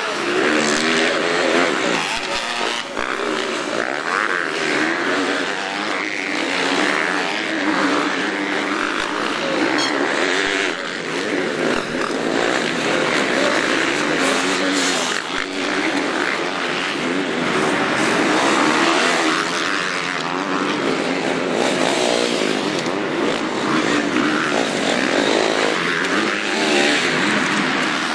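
Motocross bike engines revving, their pitch rising and falling over and over as riders accelerate through the corners. Several bikes are heard at once.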